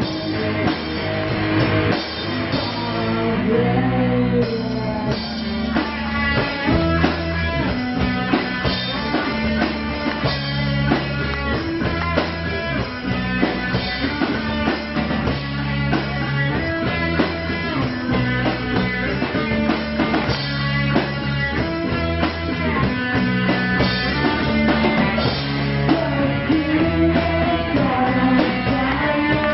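A rock band playing live: guitar, bass guitar and drum kit in a steady, driving groove.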